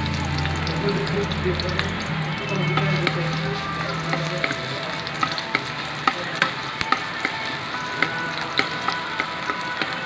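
Chopped garlic sizzling on a hot metal pan while a wooden spatula stirs it. From about five seconds in, the spatula's sharp, irregular taps and scrapes on the pan come through over the sizzle.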